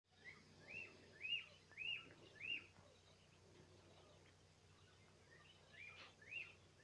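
Young pheasants peeping: a run of short chirps that rise and fall in pitch, about two a second, then a pause of a few seconds, then a few more near the end.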